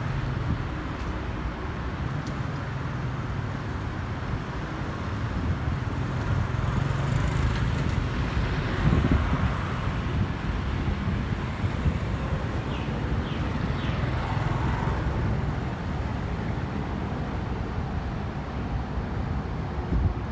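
Airplane passing overhead: a steady engine rumble that swells slightly around the middle.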